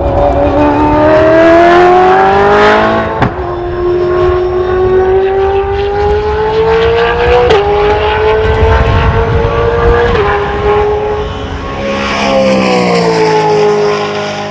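Brabham BT62 race car's naturally aspirated V8 accelerating hard, its pitch climbing through the gears with three quick upshifts about 3, 7 and 10 seconds in. Near the end the engine note falls as the car slows.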